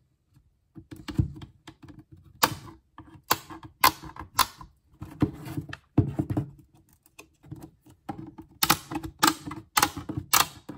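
Flathead screwdriver prying at the edge of a hard plastic CGC comic slab, giving irregular sharp plastic clicks and snaps, with a quick run of them near the end.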